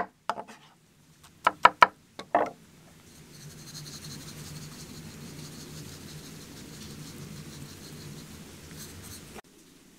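Chef's knife chopping tomato and garlic on a wooden board: a handful of quick chops in the first two and a half seconds. Then a faint steady hiss with a high buzz, which cuts off abruptly near the end.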